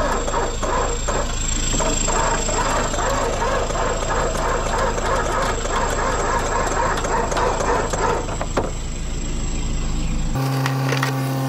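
A vehicle engine running steadily, with irregular clattering and knocks over it. It cuts off abruptly about ten seconds in, replaced by a different steady hum.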